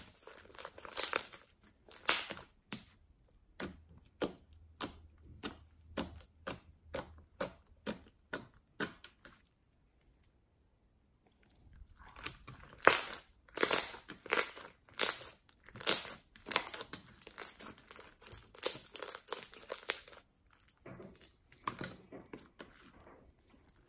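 Slime being kneaded and squished by hand, with a dense run of sticky pops and crackles that stops for about a second and a half near the middle.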